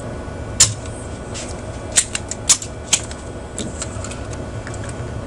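Spring-loaded desoldering pump (solder sucker) snapping four times, with a few fainter clicks, as solder is pulled off the pins of amplifier output transistors being removed. A steady low hum runs underneath.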